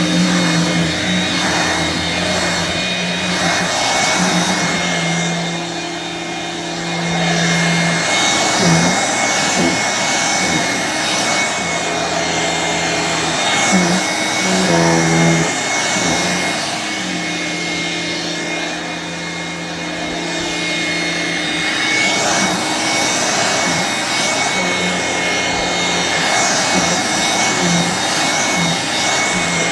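1985 Hoover Brush Vac hand vacuum running steadily, with a high motor whine; its low hum drops in and out every few seconds as the load on the motor changes.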